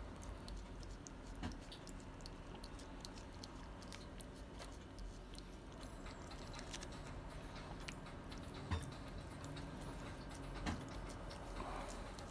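Domestic cat licking paste from a squeeze tube of Churu lickable treat: a fast, uneven run of small wet tongue clicks and mouth smacks, with a few louder clicks among them.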